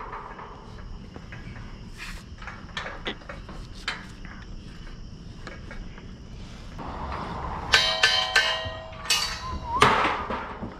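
Metal scaffolding being handled: scattered knocks and footfalls on the metal deck, then a quick run of ringing metallic clangs about eight seconds in, with more knocks just before the end.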